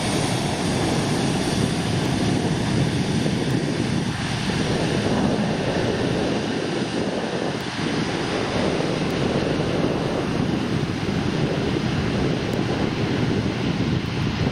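Twin rear-mounted turbofans of a Gulfstream business jet running at taxi power: a steady, even jet noise with a broad hiss over a low rumble.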